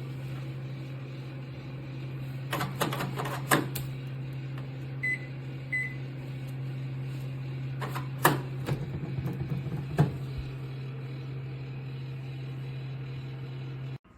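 Black+Decker EM720CB7 700-watt microwave oven running with a steady low hum. A few clicks and knocks come partway through, along with two short high beeps. The hum stops abruptly near the end.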